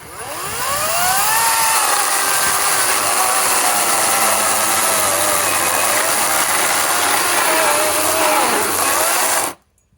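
EGO 18-inch cordless electric chainsaw spinning up with a rising whine and running under load, its pitch dipping and recovering as it cuts, then cutting out abruptly near the end: the battery shutting the saw off while it still shows three bars of charge.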